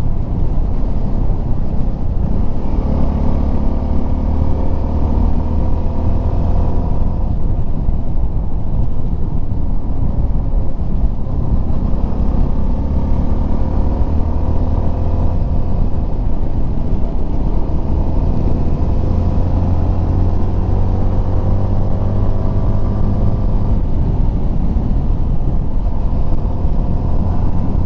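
CF Moto 300SR's single-cylinder engine running at road speed, its pitch rising and falling slowly with the throttle, over a steady deep wind rumble. The wind is picked up by a lavalier mic packed in cotton and plastic under a dead-cat windscreen, which muffles it.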